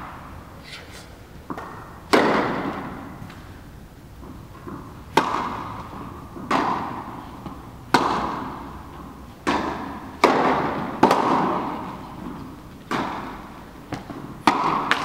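Tennis rally: rackets hitting the ball, about nine sharp hits some one to one and a half seconds apart, some louder and some softer. Each hit is followed by a long echo in a large indoor tennis hall.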